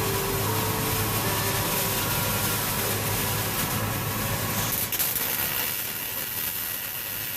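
MIG welding arc crackling and hissing steadily as a bead is laid, stopping with a click about five seconds in.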